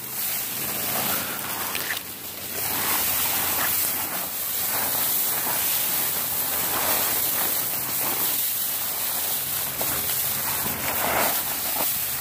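Dry brush and branches rustling and scraping against a hiker pushing through dense scrub on foot, a steady crackling rustle.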